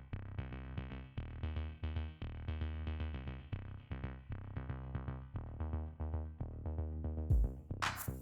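Electronic background music: a rhythmic synthesizer pattern with a steady beat, with sharper drum hits coming in near the end.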